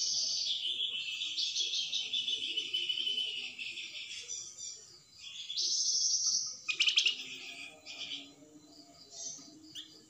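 Caged flamboyan songbird singing a fast, high twittering song full of rapid trills, in two long phrases with a short break about four seconds in; only a few scattered notes follow in the last two seconds.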